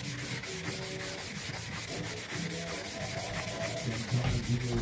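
Medium-grit sponge sanding pad scrubbed by hand in quick back-and-forth strokes over a slate clock case, rubbing the old black finish off down to the bare slate.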